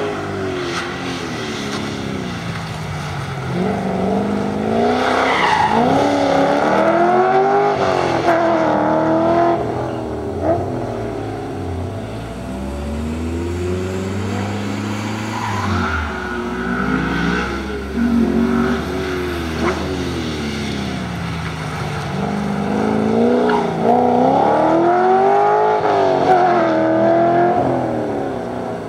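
Holden VT SS Commodore's V8 engine revving up and falling back again and again as the car is driven hard through a motorkhana course, with some tyre squeal.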